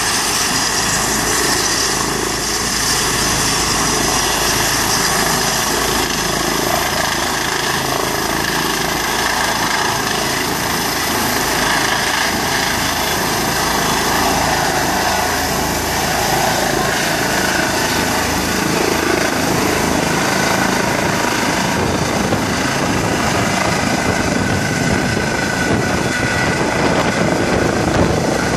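Rescue helicopter running on the ground before take-off: a steady, high turbine whine over the rotor's noise. Near the end it lifts off and climbs overhead, getting louder.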